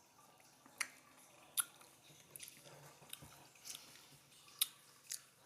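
Close-up mouth sounds of someone biting into and chewing a peeled lemon, with sharp wet smacks roughly once a second.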